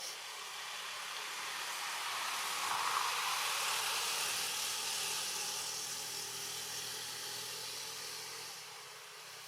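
A passing vehicle: a hiss with a faint low engine hum that swells for about three seconds, then slowly fades away.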